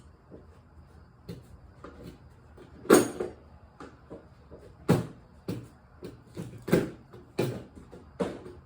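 Rummaging through stored parts: a series of sharp knocks and clatters as things are moved and set down, the loudest about three seconds in.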